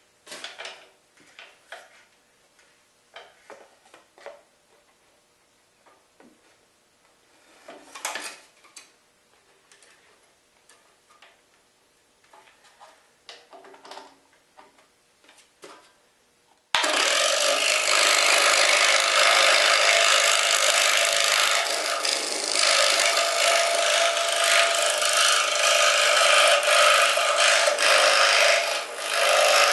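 Scattered light clicks and knocks as a scroll saw blade is unclamped, threaded through the next drilled hole in a thin wood panel for an inside cut, and re-clamped. About seventeen seconds in, the scroll saw starts suddenly and runs steadily, its blade cutting the wood, with a brief dip near the end.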